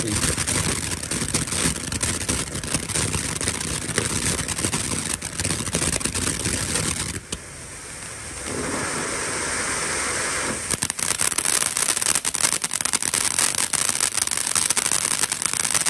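Ground fountain firework spewing sparks with a loud crackling hiss. About seven seconds in it dips briefly, runs as a smoother steady hiss for a couple of seconds, then breaks back into dense crackling.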